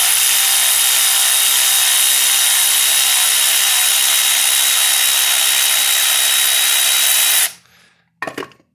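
Milwaukee cordless electric ratchet running steadily, backing the Time-Sert installer tool out of a thread insert just set in the engine block's head bolt hole. The motor cuts off suddenly near the end, and a brief metal clink follows.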